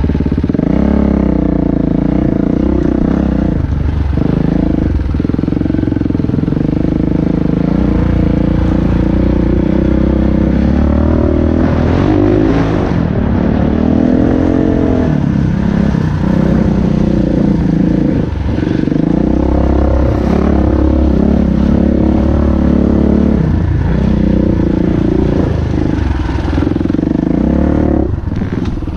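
Dirt bike engine running close up under constantly changing throttle, its note rising and falling, with brief drops every few seconds as the throttle is rolled off and on.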